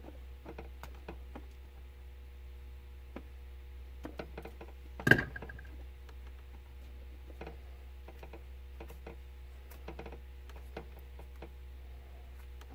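Small clicks and ticks of fingers and tools handling thin telephone-wire conductors, twisting the stripped ends together in pairs, with one sharp, much louder click about five seconds in. A steady low hum runs underneath.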